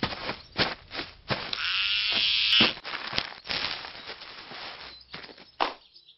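Buzzing like electric sheep-shearing clippers, loudest for about a second near the middle, set among a quick string of short clicks and pops.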